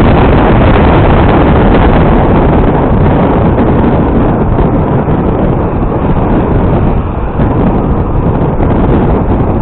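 Motorcycle riding at speed: loud wind rush on the microphone over the engine running.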